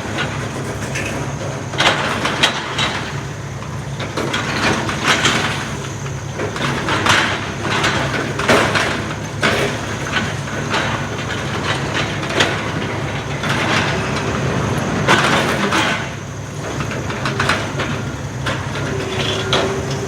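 Heavy demolition machinery running steadily while building debris is crushed and broken, with irregular cracks and crunches about once a second.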